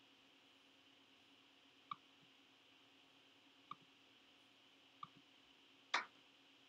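Computer mouse clicks over faint room hiss: three soft single clicks spaced about a second and a half to two seconds apart, then a louder click about six seconds in.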